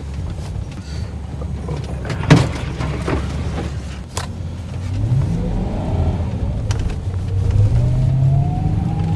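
Toyota Tundra pickup's engine rumbling, heard from inside the cab while driving across rough snowy ground, with a sharp knock about two seconds in and a smaller one later. About halfway through the engine revs up, its pitch rising, dipping and then climbing again.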